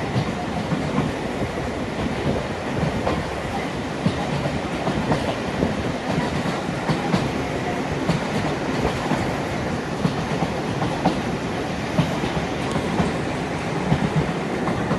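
Passenger carriage of a moving train, heard from inside: a steady rumble of wheels on track with irregular clicks and knocks from rail joints.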